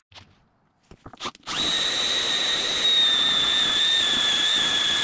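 Milwaukee M12 cordless drill boring into 3/8-inch steel plate with a twist bit. After a few light clicks it starts about a second and a half in and runs steadily with a high whine.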